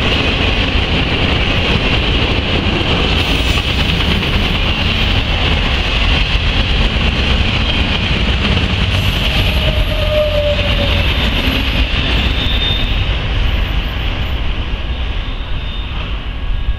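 Autorack freight cars rolling past close by, the wheels rumbling on the rails under a steady high-pitched squeal, which the railfan puts down to a bad bearing on one of the cars. The noise eases off a little near the end as the last cars go by.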